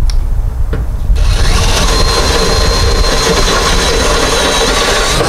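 Electric drill running steadily as its bit bores out a wiring hole in an aluminum beam, starting about a second in with a steady whine.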